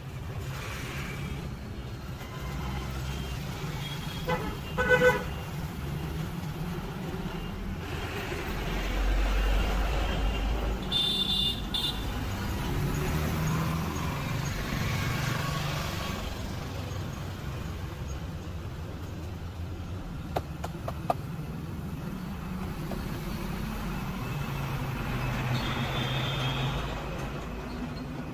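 Street traffic running steadily, with a vehicle horn tooting briefly about five seconds in and shorter high-pitched horn toots later on. A few sharp clicks come around two-thirds of the way through.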